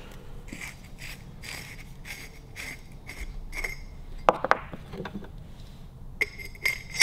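Metal parts of a Harley-Davidson WLA seat post being handled: the steel post tube and its long rod give light scraping and tapping, then two sharp metal clicks about four seconds in. Ringing metal clinks follow near the end.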